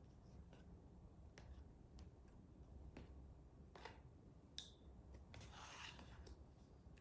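Near silence, broken by a few faint, sharp clicks and a brief soft rustle of handling just before the end.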